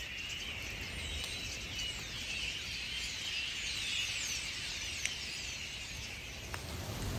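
A huge flock of birds calling all at once: a dense, high chattering made of countless overlapping chirps and whistles. It fades about six and a half seconds in.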